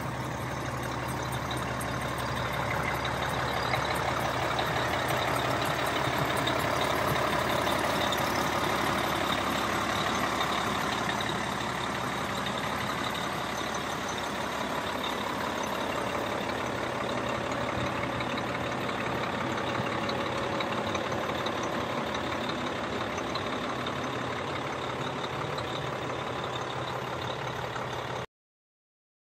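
Caterpillar C-12 six-cylinder turbo diesel of an Oshkosh MK23 MTVR 7-ton truck idling steadily. The sound cuts off suddenly near the end.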